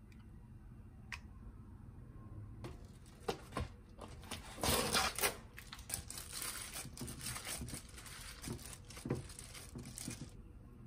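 Disposable plastic glove and plastic meat tray crinkling and rustling as ground pork is handled into a glass bowl, loudest about five seconds in.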